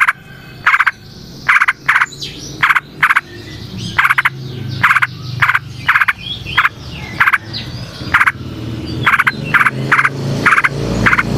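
Frogs croaking: loud, short, rattling calls repeated about twice a second. Fainter warbling yellow-vented bulbul song runs behind them, and a low hum swells near the end.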